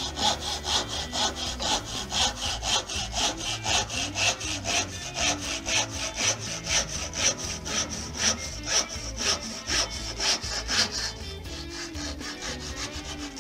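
A brass-backed backsaw cuts through a wooden dowel in quick, even strokes, about four a second. The sawing stops shortly before the end.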